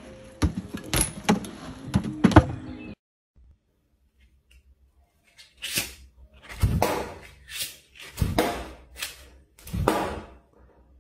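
Music with several sharp knocks for the first three seconds, then, after a short silence, a run of about six thunks and swishes as playing cards are flicked by hand and stick into a board.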